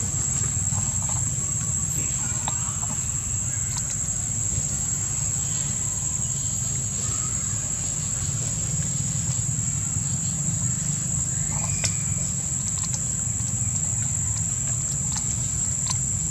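Outdoor ambience: a steady high-pitched insect drone over a low continuous rumble, with scattered faint ticks and rustles of dry leaf litter as macaques move and pick at fruit on the ground.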